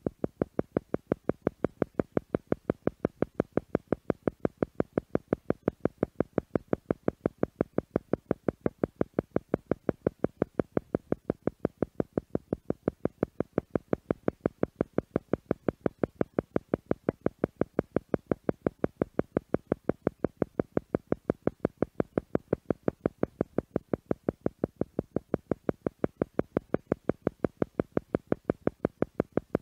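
Theta meditation sound: short isochronic pulses repeating evenly about five times a second, with silence between each pulse.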